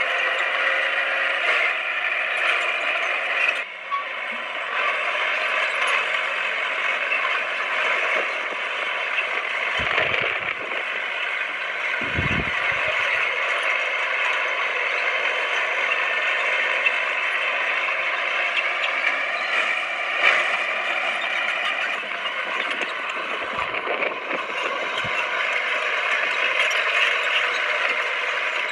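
Komatsu D20P crawler bulldozer at work: its diesel engine running steadily under a dense, continuous clatter of steel tracks and running gear, with a few deeper thumps in the middle and near the end.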